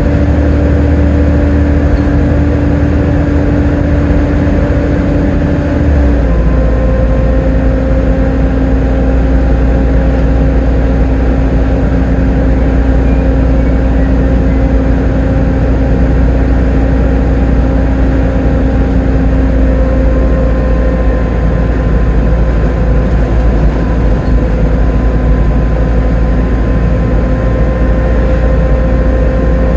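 Volvo B7TL double-decker bus's diesel engine and driveline running under way, a steady drone with a whining tone above it. About six seconds in the pitch steps down slightly, as with a gear or throttle change, and then holds steady.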